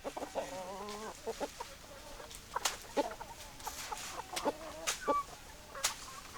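Chickens clucking: a short pitched call near the start, then scattered short clucks.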